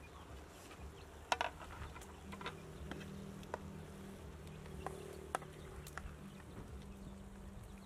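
Wooden spatula scraping and knocking against a metal wok as stir-fried greens are turned, a handful of sharp clicks, the loudest about a second and a half in. An insect buzzes steadily underneath.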